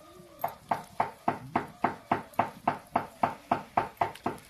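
A quick, evenly spaced run of about fourteen sharp knocks, roughly three or four a second, each with a short ring; they start about half a second in and stop just before the end.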